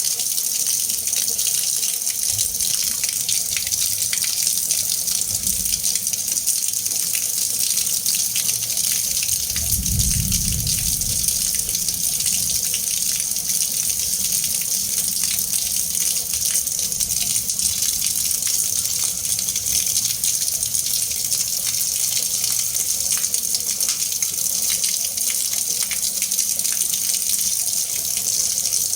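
Water running and churning steadily, an even splashing hiss, with a brief low rumble about ten seconds in.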